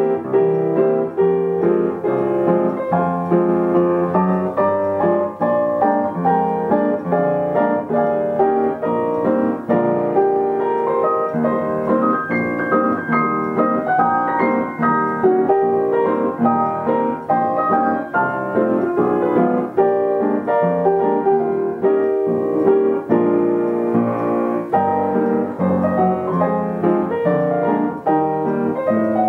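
Yamaha upright piano playing a continuous tune, a dense stream of notes and chords with no pause.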